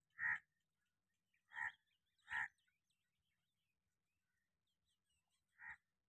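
Four short squirts of milk striking a milk pail as a cow is milked by hand, coming singly and in pairs with pauses between.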